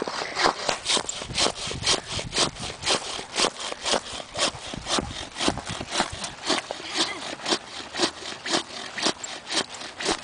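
Hand saw cutting through the trunk of a blue spruce with steady back-and-forth strokes, about two strokes a second.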